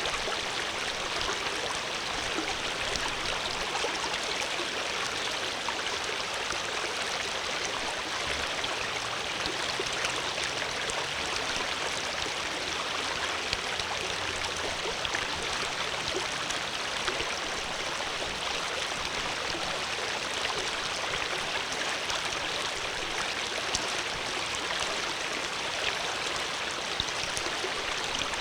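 Flowing water running steadily: a continuous rush with fine splashing ticks throughout.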